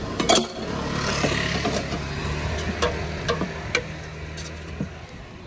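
Street traffic with a motor vehicle's engine running steadily. A sharp clack comes about a third of a second in, and a few light clinks follow, from a steel ladle against a steel batter pot.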